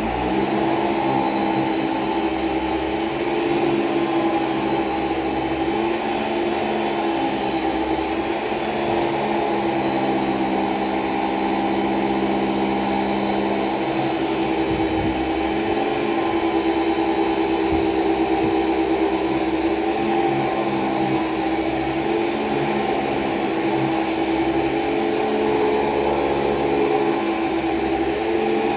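Vintage Hoover Celebrity canister vacuum cleaner with power nozzle running steadily, a constant motor hum with a high airflow hiss.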